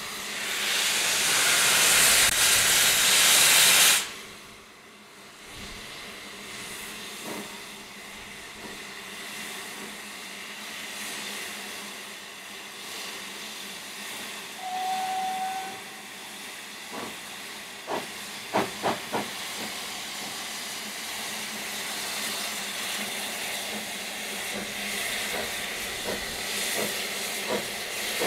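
Narrow-gauge steam tank locomotive Lyd (Southern No. 190, a 2-6-2T) hissing loudly from open cylinder drain cocks for the first few seconds, then a steady softer hiss of steam. A short whistle toot comes about halfway through, and a few sharp beats follow as the engine draws closer, with the hiss building again near the end.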